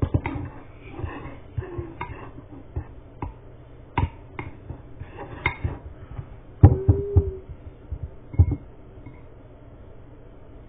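A spoon stirring a thick toothpaste-and-baking-soda paste in a bowl: irregular clicks and knocks of the spoon against the bowl, the sharpest ones a little past the middle.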